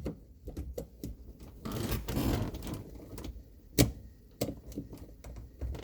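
Small plastic clicks and handling of a BlackVue dash cam being refitted to its windshield mount, with one louder sharp click near four seconds in as it snaps into place.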